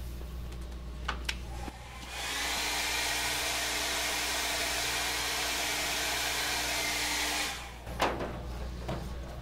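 Handheld hair dryer blowing hot air against tail light film, a steady rush of air with a low hum under it, switched on about two seconds in and off shortly before the end. A few light clicks and taps come before and after it.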